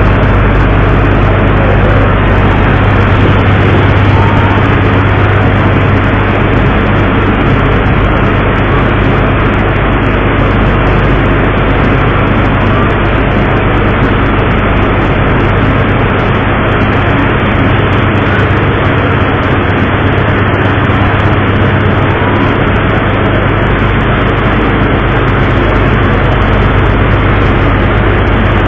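A boat's engine running steadily with a low hum, under a loud even rush of wind and sea noise on board the moving vessel.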